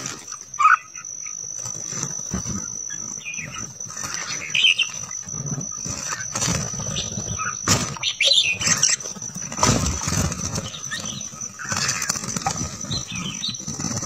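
Red-whiskered bulbuls chirping in short scattered calls while they bathe, with splashes and wing flaps in shallow running water. A steady high, thin whine runs underneath.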